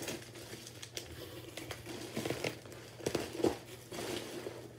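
Packaging crinkling and rustling in irregular bursts as items are pulled out of an opened parcel by hand.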